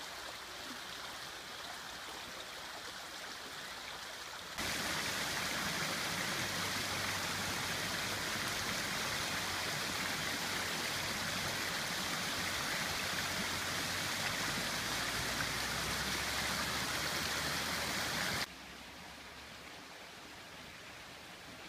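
Small rocky brook rushing and splashing over a little cascade. The water is fainter for the first few seconds, becomes loud and steady about five seconds in, and drops back abruptly to a quieter steady rush near the end.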